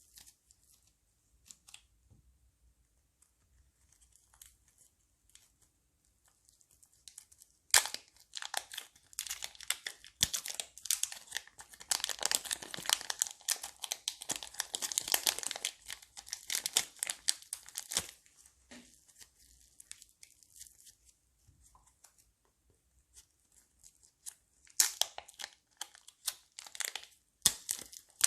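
Crunchy slime being squeezed and kneaded by hand, making dense crackling and popping. Only faint scattered clicks for the first several seconds, then a long burst of crackling, a quieter spell, and more crackling near the end.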